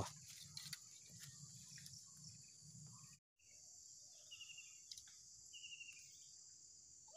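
Faint, steady high chirring of insects, like a cricket chorus, in near silence. It drops out completely for a moment about three seconds in, and two short high chirps come later.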